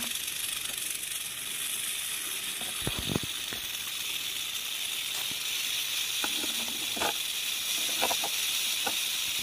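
Steady high-pitched hiss with a few faint, short knocks scattered through it.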